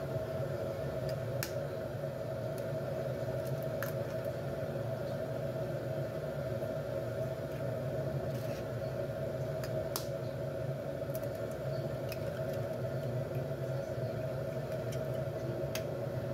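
A steady hum runs throughout, with a few faint sharp clicks of eggshells being cracked over a ceramic bowl, the clearest about ten seconds in.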